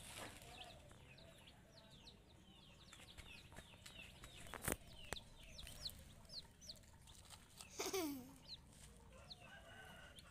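Young broiler chicks peeping: many short, high, falling peeps one after another. A sharp click comes about halfway through, and a brief louder noisy sound with a falling tone near the end.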